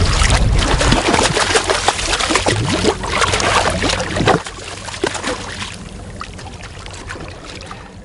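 Sea water splashing as a hooked fish thrashes at the surface beside the boat, loud for about four seconds and then suddenly much quieter.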